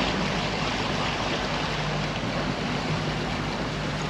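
Motorboat running under way: a steady engine hum under rushing water and wind noise.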